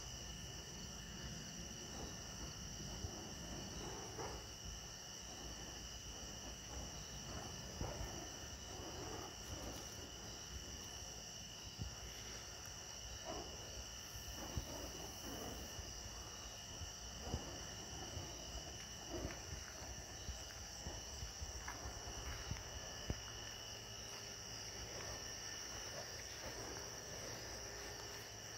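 Night insect chorus: crickets chirring steadily in a high, even drone, with a few brief soft noises scattered through it.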